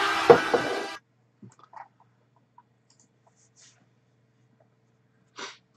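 The tail of a cheering crowd over music, with a sharp hit a moment in, cut off after about a second. Then near silence with a faint low hum and a few faint clicks, and a short soft rush of noise near the end.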